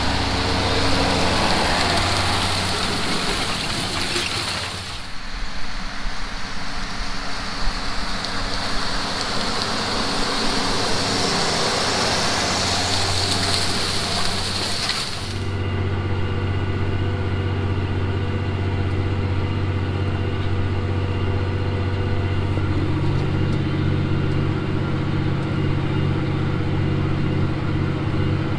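Versatile 365 four-wheel-drive tractor's diesel engine working under load while pulling tillage equipment through corn stubble. For the first 15 s a loud rush of engine and ground noise goes by, dipping briefly about 5 s in; then it cuts to a steady engine drone whose pitch shifts slightly a little later.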